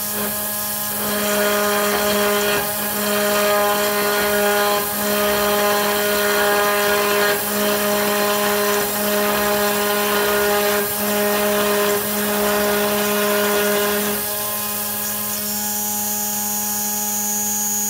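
Homemade CNC router's 2.2 kW water-cooled spindle whining steadily while a 5 mm four-flute carbide end mill mills 5 mm aluminium plate in shallow 0.4 mm passes. The cutting adds a louder, rougher ringing layer from about a second in until about fourteen seconds, then drops back to the spindle alone.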